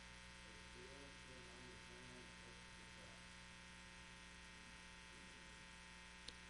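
Near silence: a steady electrical hum, with faint, distant speech from someone talking off-microphone in the first few seconds and a single click near the end.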